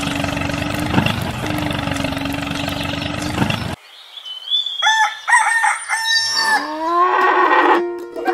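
A toy tractor's small electric motor and gears whirring steadily, with a few clicks, cutting off abruptly about four seconds in. A rooster then crows and hens cluck.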